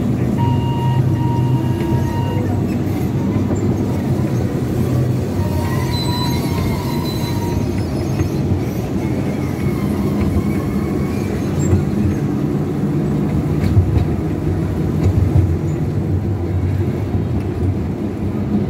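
Small ride-on train running along its track: a steady low rumble, with a few faint high tones over it near the start and again about six seconds in.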